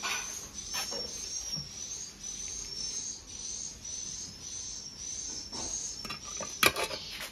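An animal calling: a short, high chirp that rises in pitch, repeated about two to three times a second. Near the end a metal pan lid clatters loudly.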